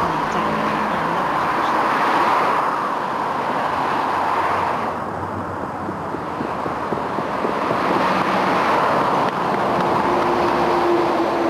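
Road traffic on a busy dual carriageway: a steady rush of vehicles going past that swells and fades every few seconds. Near the end a steady hum sinks slightly in pitch.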